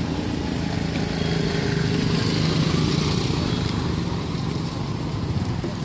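A motor vehicle engine running with a steady low hum over street noise. The hum grows louder about two seconds in, then eases off.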